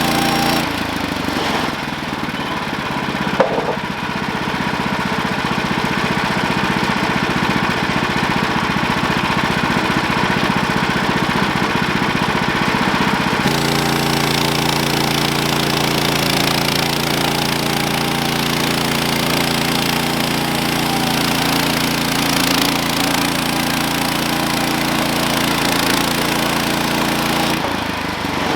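Portable band sawmill's gas engine running steadily. Its tone changes sharply about half a second in, again about halfway through, and again near the end, as the load on the saw shifts.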